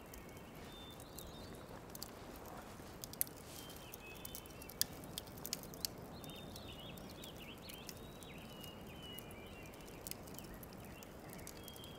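Quiet outdoor woodland ambience: a steady low hiss with faint, scattered bird chirps and a few sharp clicks.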